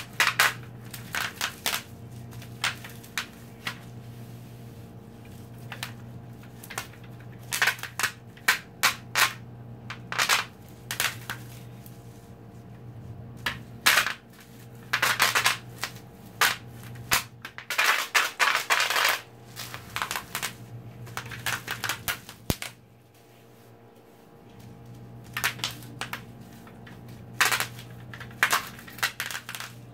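Bubble wrap popping as a plastic tube is rolled over the sheet by hand: irregular sharp pops, some single and some in quick crackling runs, densest in two bursts past the middle.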